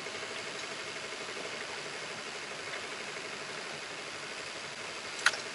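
A steady faint mechanical hum over a background hiss, with one sharp click near the end.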